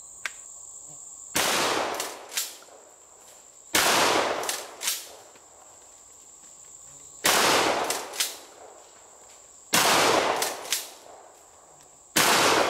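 Franchi SPAS-12 12-gauge shotgun fired five times in pump-action mode with low-recoil rifled slugs, a shot every two to three seconds. Each shot is followed by a few sharper clacks as the pump is worked.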